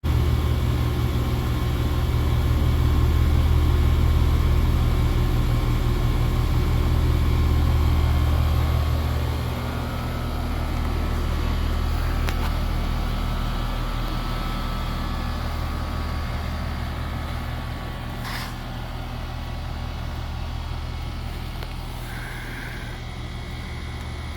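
Two whole-house dehumidifiers running: a steady low machine hum with fan noise, which drops a little in level about nine seconds in, with a faint click near the middle and another later.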